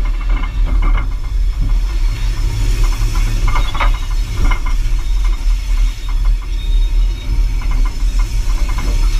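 Diesel locomotive 801's engine running with a steady deep drone as the locomotive rolls slowly along the track, with metal rattling and a few sharper clicks about four seconds in.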